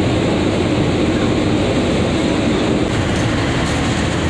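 Steady rumble of a ferry underway: the drone of its engines mixed with wind buffeting the microphone on the open deck.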